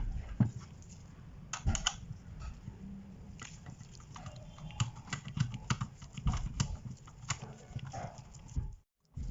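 Irregular clicks and light knocks of hands handling a DVR and its hard drive hardware. The sound drops out briefly just before the end.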